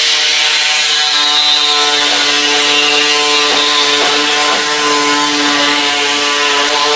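A steady mechanical buzzing drone, like a motor or power tool running at constant speed, holding one pitch throughout with a hiss above it.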